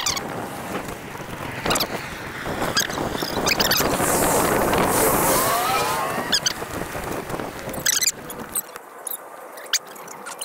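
Bicycle riding on a concrete sidewalk: wind buffeting the handlebar-mounted camera over the rumble of the tyres, with sharp clicks and rattles as the bike crosses the slab joints. The rumble falls away in the last couple of seconds.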